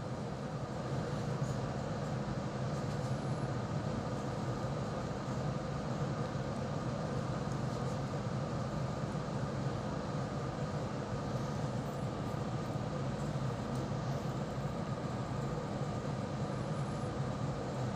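Steady low mechanical hum of a motor running, with a faint higher steady tone above it and no breaks.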